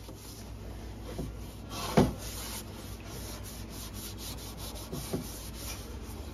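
Paintbrush bristles scrubbing oxalic acid solution over the wooden bottom of a drawer in quick back-and-forth strokes, with a sharper knock about two seconds in.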